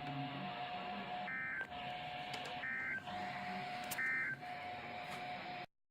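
EAS end-of-message data signal from NOAA Weather Radio: three short bursts of warbling digital data tones, each about a third of a second, roughly a second and a half apart, over radio hiss with a faint steady tone underneath. The audio cuts off suddenly near the end.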